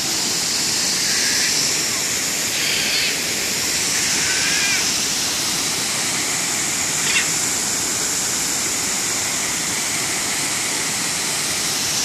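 Düden waterfall's cascades pouring into the pool below: a loud, steady rush of falling water. A brief click comes about seven seconds in.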